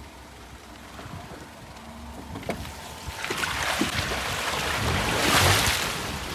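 Front-wheel-drive Daihatsu Mira ES driving off-road: a few knocks over rough ground, then from about three seconds in a loud rushing noise swells up, loudest near the end, over the low note of the small engine.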